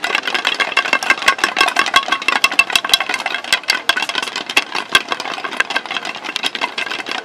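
Many wooden staffs knocking on stone paving in a rapid, irregular clatter, each knock with a short woody ring.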